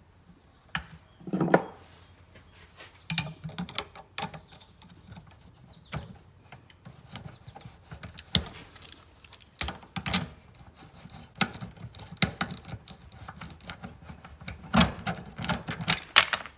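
Irregular metal clicks and clanks from locking pliers and a steel bar working a bent steel hinge shaft out of a mower deck chute bracket clamped in a bench vise. The shaft is bent, which is why it has to be forced out.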